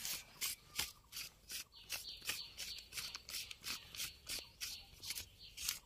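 Hand-twisted pepper mill grinding white peppercorns, a steady run of short crunchy grinding strokes at about three a second.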